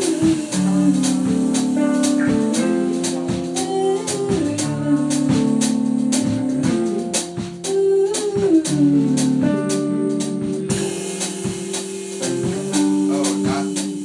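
Small band playing: guitar under held melody notes that slide between pitches, with regular short hits keeping the beat.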